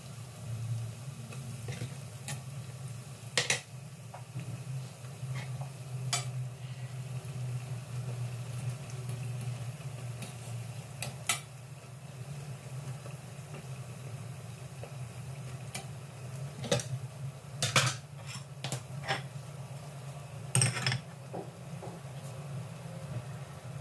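Banana turon frying in oil in a stainless steel saucepan, a steady sizzle over a low hum, broken by a dozen or so sharp clicks of a metal fork knocking against the pot as the rolls are turned, the loudest bunched after the middle.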